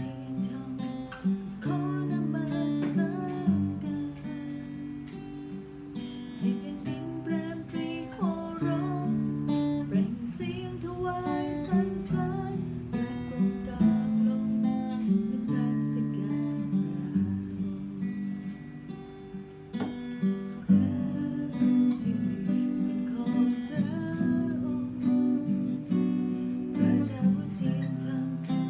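Two acoustic guitars played together, strummed and picked, with a woman singing a melody over them.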